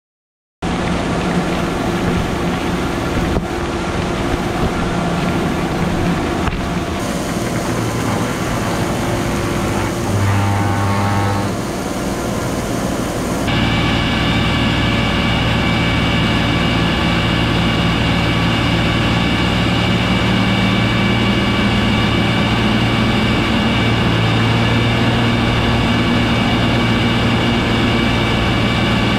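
Hagie STS 12 self-propelled applicator running steadily through the field: the diesel engine drones and the Montag air-delivery system blows the nitrogen out along the boom. Near the middle the sound changes suddenly and a higher steady whine comes in.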